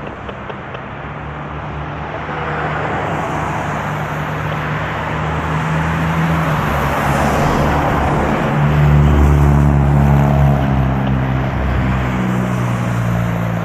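Heavy fire truck's diesel engine running with tyre and road noise, growing louder and at its loudest about nine to ten seconds in.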